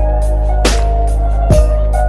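Music with a deep, steady bass and a slow, even drum beat, a little more than one beat a second.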